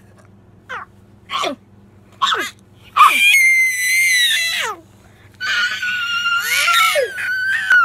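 A toddler's high-pitched shrieking: three short cries, then two long, steady, very high squeals, one about three seconds in and a longer one from about five and a half seconds.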